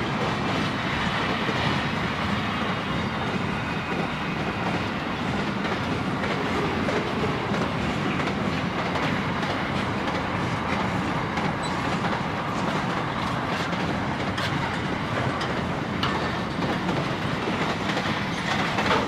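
Container wagons of a long intermodal freight train rolling past: a steady rumble of steel wheels on the rails, with scattered clicks from the wheels.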